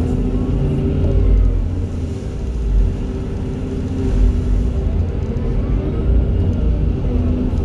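Hydraulic excavator diesel engines running under working load: a steady low rumble with an engine note that rises and falls a little.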